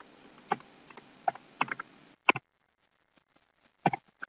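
Computer keyboard keystrokes: a handful of separate, irregularly spaced key clicks as a file name is typed, over a faint hiss that drops out about halfway.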